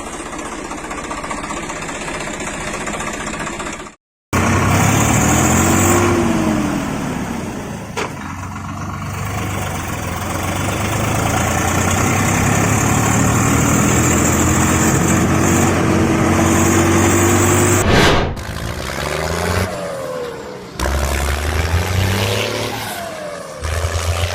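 Heavy machinery engine running and revving, its pitch rising slowly and falling back. It cuts to silence for a moment about four seconds in, and the engine sound changes after about eighteen seconds.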